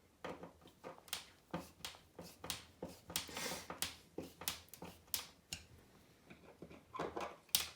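A string of short, irregular light clicks and taps, two or three a second, from hand tools and a spirit level being handled against a newly fitted plastic wall socket faceplate.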